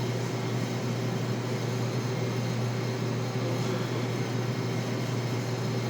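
MVP Hydra espresso machine running steadily with a low hum while a shot is being extracted.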